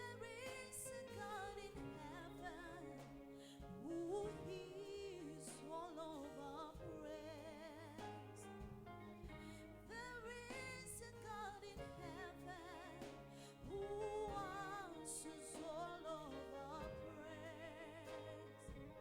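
Worship music: a solo voice singing with wide vibrato over steady sustained instrumental accompaniment.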